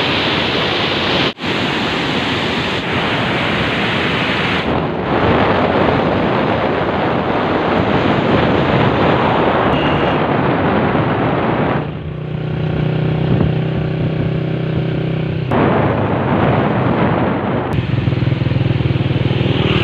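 Loud, steady rushing roar of wind on the microphone and fast-flowing floodwater. Past the middle, a small engine, likely the motorcycle being ridden along the barrage, hums steadily for about three seconds before the rushing noise returns.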